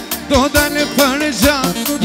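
Live Albanian popullore music: an electronic keyboard with a steady drum beat and sustained chords under a fast, heavily ornamented melody with quick bends and trills.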